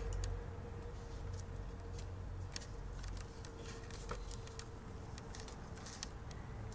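A tabby cat play-fighting with a hand on a carpeted perch: soft scuffling and scratching, with many small sharp clicks scattered through, over a low rumble.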